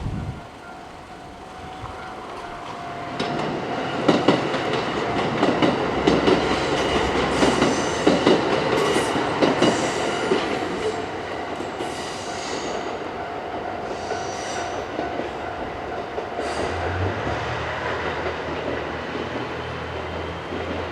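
Three-car Hamakaze limited express, a KiHa 189 series diesel railcar train, passing through a level crossing. Its wheels clatter over the rail joints and its diesel engines run, against the crossing's steady warning alarm. The alarm stops about 16 seconds in, and a low engine drone carries on to the end.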